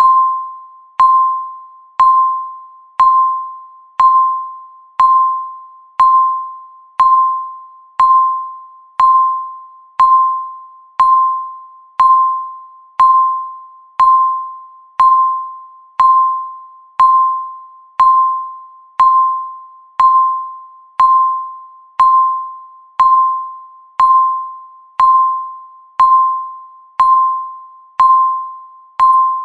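Countdown timer beeping once a second: a single electronic tone, each beep starting sharply and fading away before the next.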